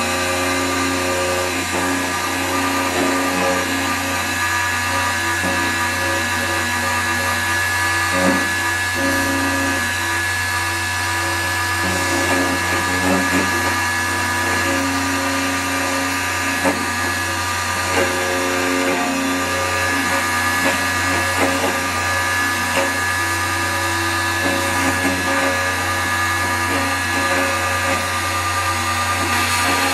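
Multifunction key-duplicating machine running steadily, its motor-driven cutter milling cuts into one side of a key blank.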